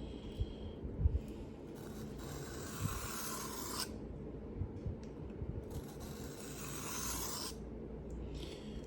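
Knife blade being drawn across a whetstone in long strokes, a steady scraping hiss each lasting a few seconds, with a couple of light knocks about a second in.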